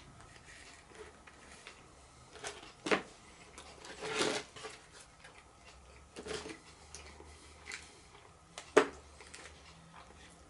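A person eating a breaded chicken burger: quiet chewing with a few scattered short crunches and clicks of handling food, the sharpest about three seconds in and near nine seconds, and a longer crunching noise a little past four seconds.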